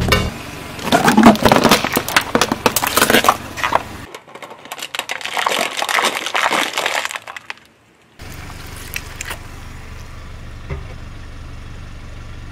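A car tyre crushing objects: loud crunching and cracking for the first few seconds, then the crinkling of thin aluminium foil food trays flattening under the wheel. After a short gap, a steady low hum with a few faint clicks.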